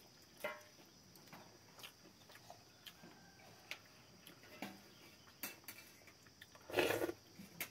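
Faint eating sounds: fingers mixing rice on stainless steel plates, with scattered small clicks and mouth sounds. A short, louder breathy rush comes near the end.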